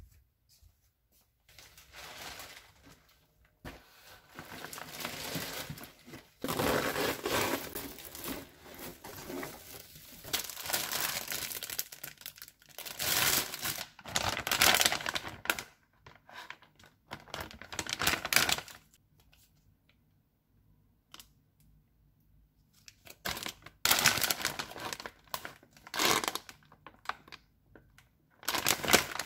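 Plastic grocery bags and food packaging crinkling and rustling in repeated bursts as groceries are unpacked, with a quiet stretch of a few seconds about two-thirds of the way through.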